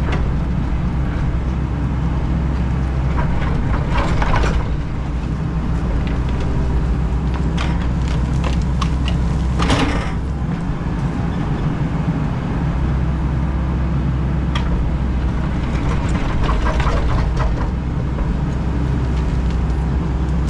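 Excavator's diesel engine running steadily as it digs, heard from inside the cab, with the bucket scraping and clanking through stony gravel: knocks about 4 and 10 seconds in, and a run of scrapes near the end.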